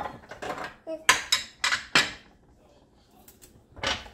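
Spoons clinking and clattering against mixing bowls: four sharp clinks between about one and two seconds in, and another near the end.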